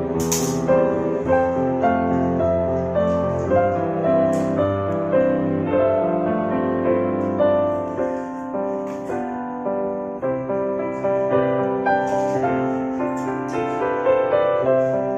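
Background music led by piano: a gentle melody over sustained low bass notes.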